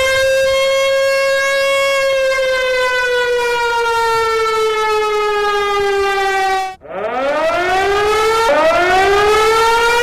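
Loud siren wail: a held high tone that slowly sinks in pitch, breaks off briefly about two-thirds of the way through, then winds back up in two rising sweeps.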